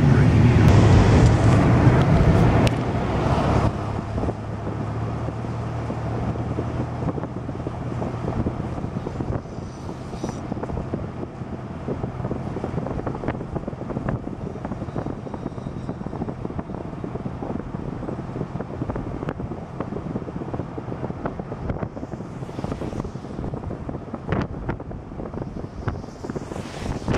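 A vehicle being driven: a steady low engine hum under road and wind noise, louder for the first few seconds and then settling.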